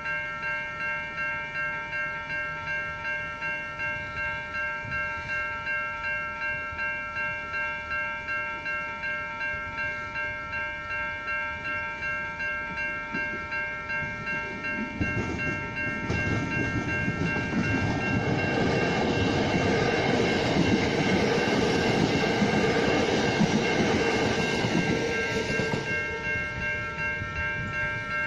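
Level crossing warning bells ringing about twice a second, with an electric multiple-unit commuter train passing over the crossing in the second half: its running noise builds about halfway through, peaks, and eases near the end while the bells keep ringing.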